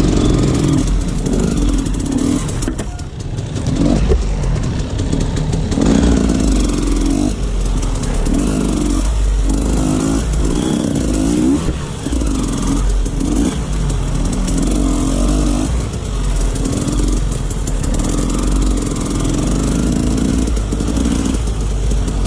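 Off-road dirt bike engine revving up and down again and again, the throttle blipped in short rises, over a steady low rumble.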